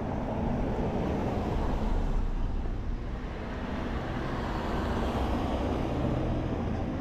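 A car driving past on the street, its road noise swelling as it goes by about two seconds in, over a steady low rumble.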